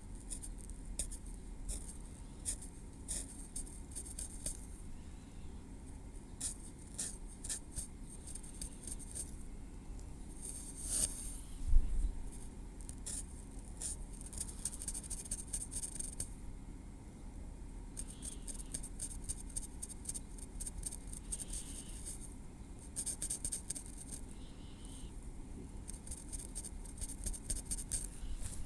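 Metal tweezers picking and scraping at scalp and hair close to the microphone: runs of small, crisp clicks and faint scratches, with one louder bump about twelve seconds in.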